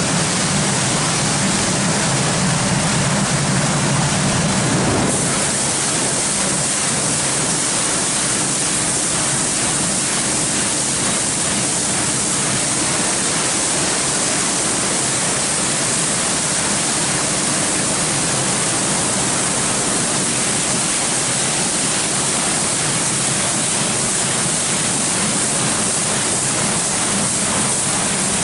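Tammermatic UltraLux rollover car wash spraying water jets onto a car, a loud steady hiss of spray. About five seconds in, a low machine hum drops away and the spray turns brighter and hissier.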